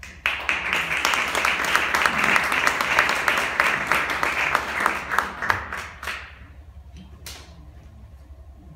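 Audience applauding, a dense patter of clapping that lasts about six seconds and then dies away into a few last claps.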